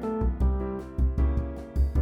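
Background music: plucked and keyboard notes over a steady low beat.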